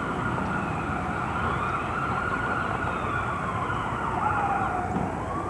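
Ambulance siren wailing, its pitch sliding slowly up and down, over a steady background hiss.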